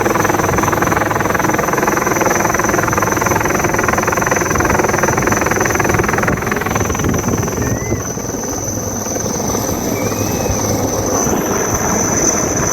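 Coast Guard helicopter hovering over the sea, its rotor and engine noise running steadily, dipping slightly about eight seconds in and then building again.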